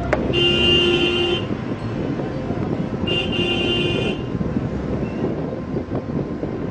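Two car-horn blasts, each about a second long and a few seconds apart, over the steady noise of street traffic.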